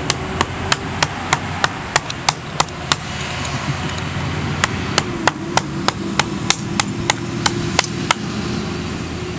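Knife chopping into the fibrous husk of a green coconut: sharp blows about three a second, with a pause of about a second and a half in the middle.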